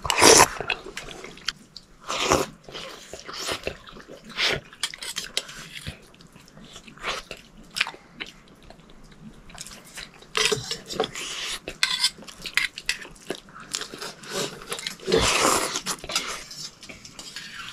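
A man eating noodles and boiled eggs from a stainless steel bowl: a steel spoon clinks and scrapes against the bowl, with chewing in between and a longer slurp of noodles near the end.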